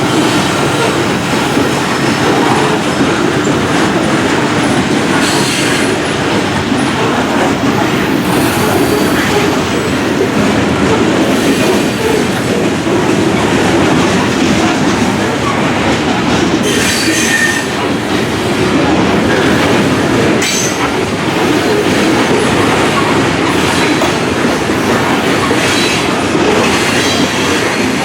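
KCSM freight train rolling past, a steady loud noise of steel wheels running on rail, with a brief high squeal about 17 seconds in.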